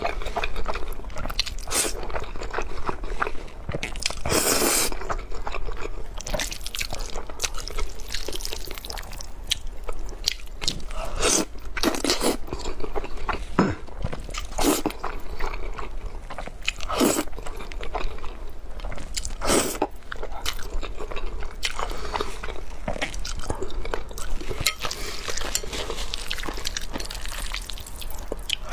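A person slurping up mouthfuls of noodles and chewing them, recorded close up: irregular wet chewing and biting sounds, with several longer slurps spread through.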